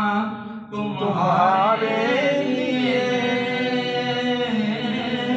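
A man singing an Urdu naat, drawing out long, wavering, ornamented notes, with a short break for breath just under a second in.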